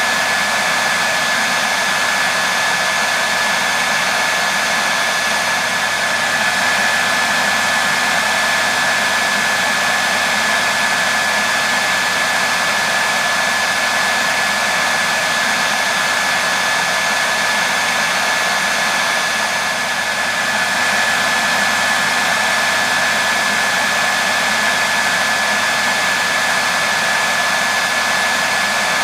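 Hair dryer running steadily, an even rushing of air with a constant high whine.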